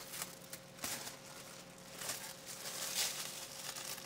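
Plastic cling wrap crinkling and rustling as it is peeled off a glass baking dish, in irregular soft crackles.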